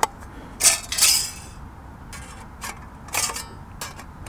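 Thin stainless steel plates of an Emberlit wood stove clinking and scraping against each other as they are slotted together by hand: a series of light metallic clicks, with a louder clink and a short scraping rattle about a second in.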